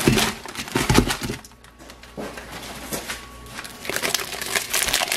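Frozen chicken pieces dropped from a plastic bag into broth in an Instant Pot's stainless steel inner pot: two heavy drops about a second apart, then plastic bag crinkling from about four seconds in.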